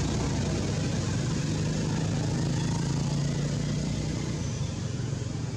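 A steady engine drone with a low hum and a constant hiss, swelling slightly midway, like a motor vehicle running nearby.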